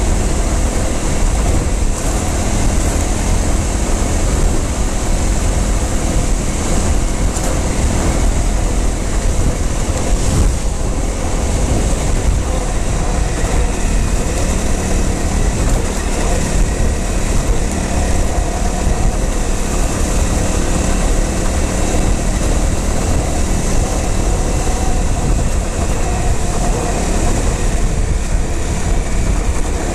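Off-road motorcycle engine running steadily under way on a rough dirt track, over a heavy, constant rumble of wind and ground noise.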